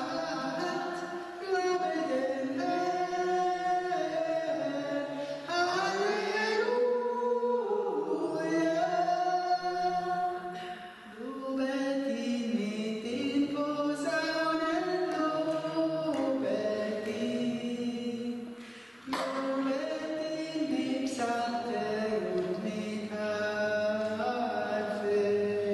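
A woman singing a worship song unaccompanied into a handheld microphone, in long phrases with two brief pauses for breath.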